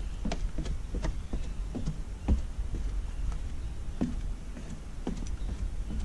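Footsteps going down wooden stairs, about two steps a second, each a short thud with a sharp knock, over a steady low rumble.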